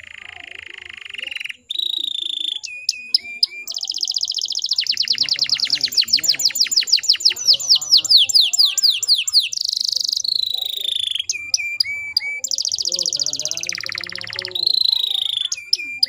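Domestic canary singing a long, varied song of sustained trills and rolls, with a rapid run of quick falling notes in the middle as its loudest part.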